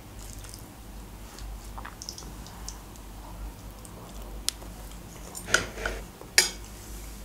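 Quiet close-miked eating: a metal fork cutting through soft boiled pumpkin on a ceramic plate, and soft chewing. A few small sharp clicks come in the second half.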